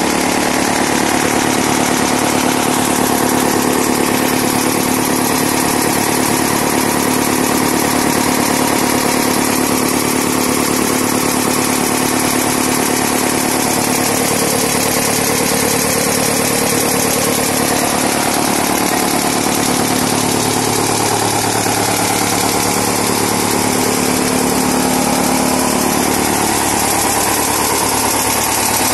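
Engine-driven farm machine running at a steady speed: a continuous mechanical drone with a steady hum, unchanged throughout.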